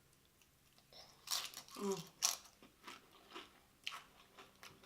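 Crunchy bites and chewing of cheese-loaded tortilla chips: a run of crisp crunches starting about a second in.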